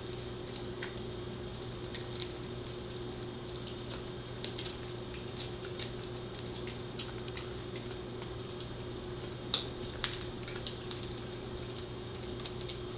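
Pembroke Welsh Corgi chewing a cow tail wrap (dried cow tail wrapped in its own skin): irregular small clicks and crunches of her teeth working the chew, with two louder cracks about two-thirds of the way through, over a steady low hum.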